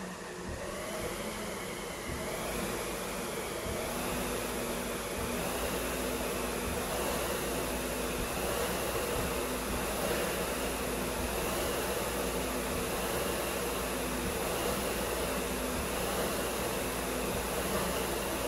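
Concept2 SkiErg's air-resistance flywheel fan whirring. It spins up over the first few seconds, then swells with each double-arm pull, about one pull every second and a half.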